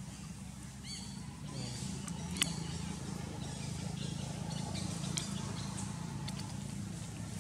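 A few short, high chirping animal calls about a second in, over a steady low hum, with a few scattered clicks.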